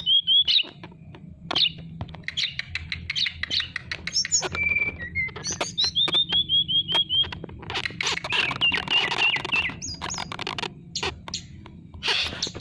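Tledekan gunung songbird singing: repeated runs of quick, high whistled notes that step down in pitch, with sharp clicks between the phrases over a steady low hum.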